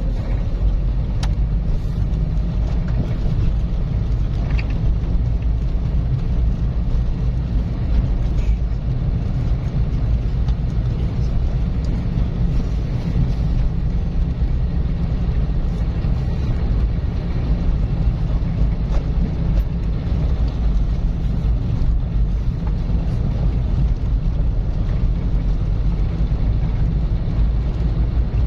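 Car driving steadily: a constant low drone of engine and tyre road noise, with a few faint ticks.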